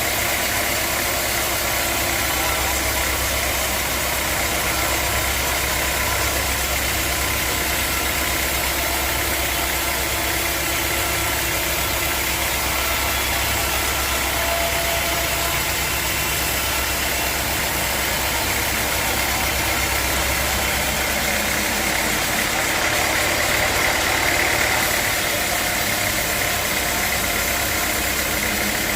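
Sawmill machinery running steadily with a constant mechanical drone and a steady high whine. The low hum thins out about two-thirds of the way through.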